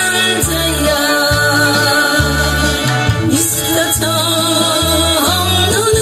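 A woman singing a Korean trot song into a microphone over a backing track with a stepping bass line, amplified through PA speakers.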